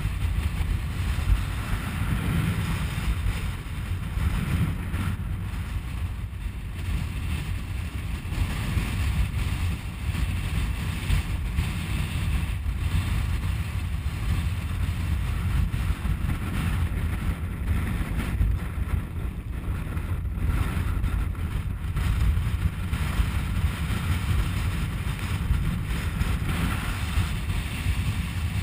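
Wind buffeting the microphone: a loud, uneven low rumble with no engine or other distinct sound in it.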